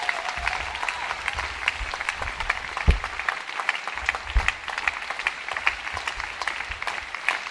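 Audience applauding, a dense steady patter of many hands clapping. A low thump comes about three seconds in and another a little after four seconds.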